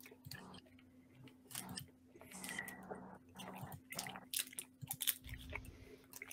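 Faint, scattered clicks and crunching close to a microphone, over a steady low electrical hum.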